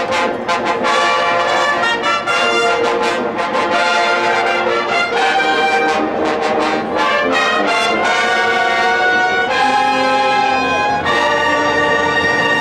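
Marching band playing a brass-led tune of trumpets and trombones, with sharp percussive hits early on, settling into a long held chord near the end.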